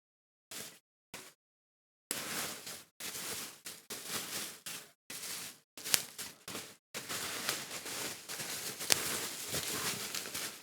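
Bubble wrap and plastic packaging being pulled off a shelf: rustling and crinkling in bursts with a couple of sharp clicks, cutting to dead silence between bursts in the first two seconds.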